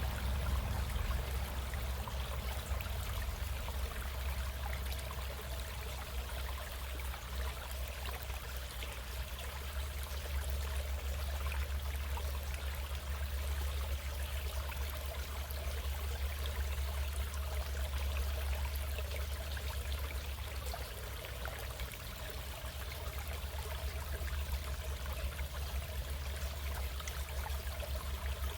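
Stream flowing: a steady, unbroken rush of running water.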